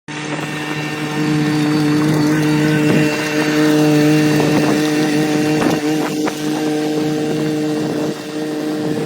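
Excavator's diesel engine running at a steady pitch, with a few short clanks near the middle.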